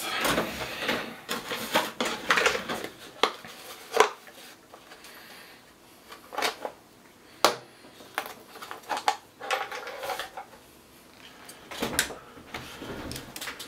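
Hand tools clattering and clinking as someone rummages through a cluttered pile looking for a screwdriver, with irregular sharp knocks, the loudest about 4, 7.5 and 12 seconds in.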